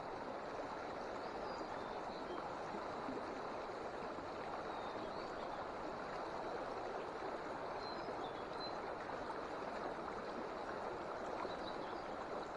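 Small mountain stream flowing: a steady rush of water.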